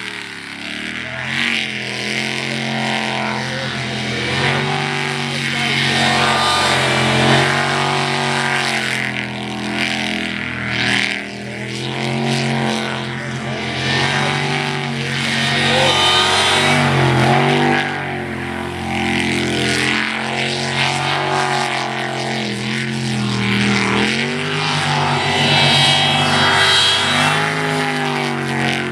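V8 jet sprint boat engine running hard, its pitch rising and falling again and again as the throttle comes on and off through the course's turns, over a hiss of water jet and spray.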